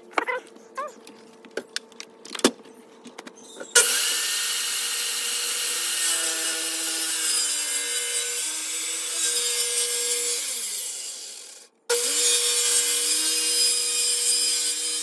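Corded circular saw cutting along a glued-up wood board, with a steady motor hum under the cutting noise. It starts about four seconds in after a few light knocks, spins down about ten seconds in, and after a sudden break runs and cuts again.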